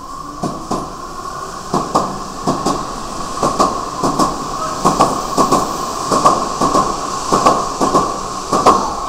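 Berlin U-Bahn large-profile train pulling out and picking up speed: its wheels clatter over the rail joints in pairs of clicks that come faster and faster, over a steady high whine.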